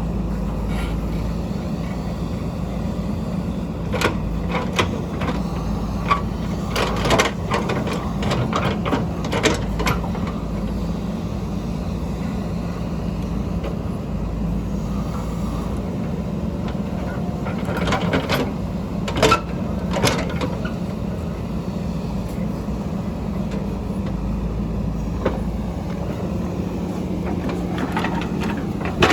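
Backhoe's diesel engine running steadily under work, with two clusters of sharp clanks and knocks, a few seconds in and again past the middle.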